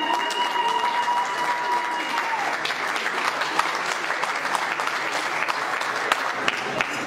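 A crowd applauding steadily, a dense patter of many hands clapping. A long high note is held over the applause at first and ends about two and a half seconds in.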